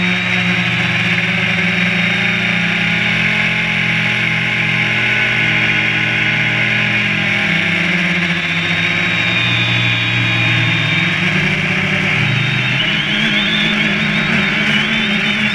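Quadcopter drone's electric motors and propellers buzzing steadily in flight, heard close up from a camera mounted on the drone. The pitch shifts and wavers in the second half as the motor speeds change.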